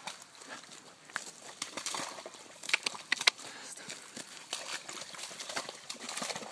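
Springer spaniel moving through boggy mud: irregular squelches and splashes, with a few sharper slaps about three seconds in.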